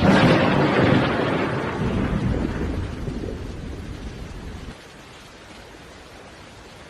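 A sudden loud crash that starts at full strength, then rumbles and fades over about four seconds before cutting off abruptly.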